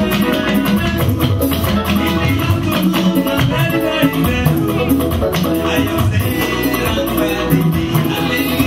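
Upbeat music with guitar and percussion keeping a steady beat.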